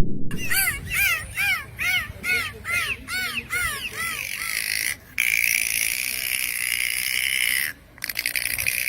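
An animal giving a quick run of short, pitched calls, each rising and falling, about two to three a second, followed by a steady high-pitched sound that cuts off abruptly twice.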